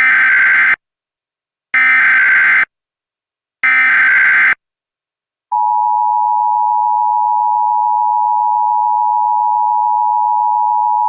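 Emergency Alert System SAME header: three bursts of data tones, each just under a second long. About five and a half seconds in, the steady EAS attention tone starts.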